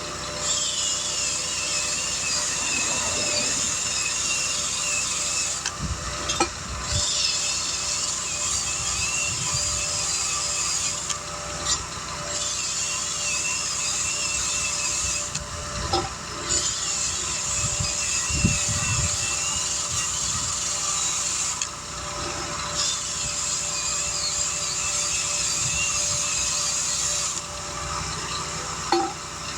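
A handheld power tool running with a high, rasping whir in stretches of several seconds, stopping briefly about five times, as when buffing or reaming a tire's inside for a patch.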